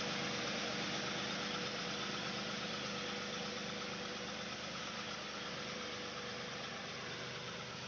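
Tractor engine running steadily as it pulls a single-disc plough through the soil, slowly fading as the tractor moves away.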